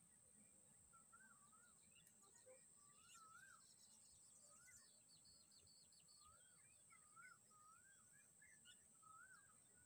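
Faint bird calls in a marsh: short wavering, rising-and-falling notes repeated about once a second, over a steady thin high-pitched hiss.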